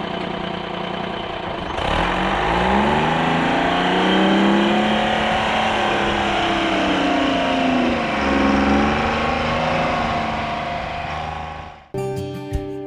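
Tractor engine running under load, its pitch rising and falling as the revs change, fading out near the end as plucked acoustic guitar music starts.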